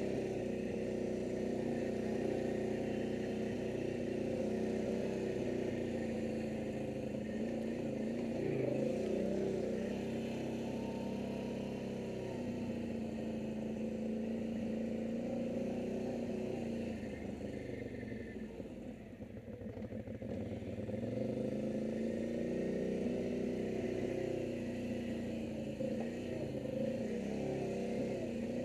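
ATV engine running while the quad rides a dirt trail, its pitch rising and falling with the throttle. About two-thirds of the way through it eases off, drops in pitch and level, then picks up again.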